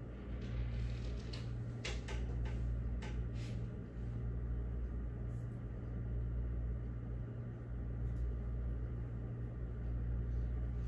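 A steady low hum of room equipment, with a few faint scratching sounds in the first three or four seconds.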